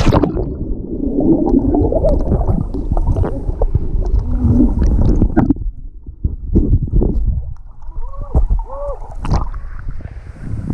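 Muffled gurgling and sloshing of water heard with the microphone under the surface of a waterfall pool, full of dull knocks and a few short warbling sounds. The bright rush of the falls drops away suddenly at the start and returns as the microphone comes back up at the end.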